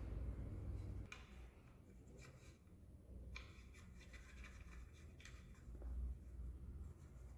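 Faint scraping and light clicks of a thin metal pin being worked into a hole in a carved wooden stock, with a low rumble that drops away about a second in.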